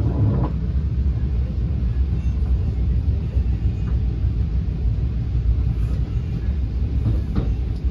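Steady low rumble of an NJ Transit Multilevel passenger coach running along the track, heard from inside the car.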